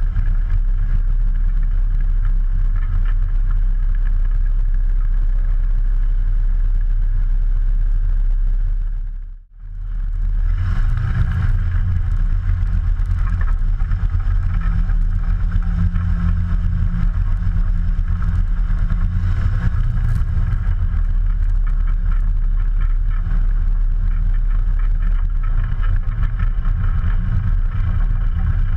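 Ikarus C42's 100 hp Rotax four-cylinder engine and propeller running steadily at low power while the aircraft taxis. About nine seconds in, the sound drops away for about a second, then comes back a little louder.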